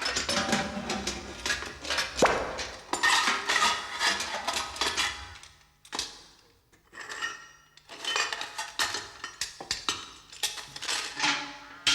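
Cartoon sound effects of metal pieces clanking and clattering in quick succession, with short lulls about halfway through.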